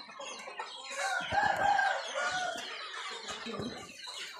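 Cambodian village chickens clucking in a coop, with a rooster crowing once about a second in; the crow is the loudest sound.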